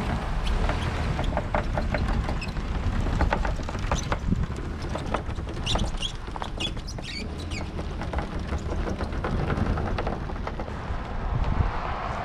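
Car engine running at low speed as it tows a wheeled engine hoist loaded with a hanging engine block over rough ground, with rattling and clanking from the hoist and chain. Short high squeaks come about six to seven seconds in.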